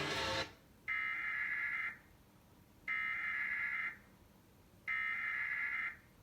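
Emergency Alert System SAME header: three bursts of warbling data tones, each about a second long and about a second apart, marking the start of a Required Weekly Test.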